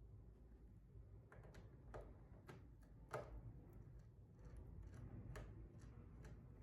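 Faint small clicks and taps of wire and hand tools being worked at a switch terminal: about ten scattered ticks, the loudest a little past three seconds in.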